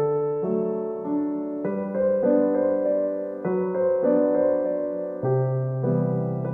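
Background music: a gentle solo piano piece, slow chords and single notes struck about once a second.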